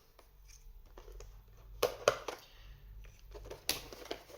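Trading card packaging and cards being handled: a low rustle with a few sharp crinkles and taps, two close together about two seconds in and another near the end.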